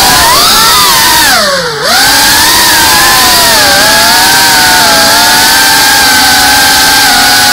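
FPV drone's brushless motors and propellers whining loudly, picked up by the drone's onboard camera. The pitch swoops with the throttle: a deep dip with a brief drop in loudness about a second and a half in as the throttle is pulled back, then a steadier high whine that wavers slightly.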